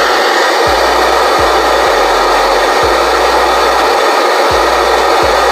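FM radio static from a Core Innovations Galileo alarm clock's built-in speaker: a loud, steady hiss of the untuned radio, with no station coming in.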